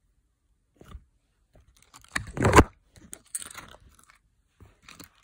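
Page of a spiral-bound picture book being turned and handled close to the microphone: a few short paper rustles and brushing sounds, the loudest about two and a half seconds in.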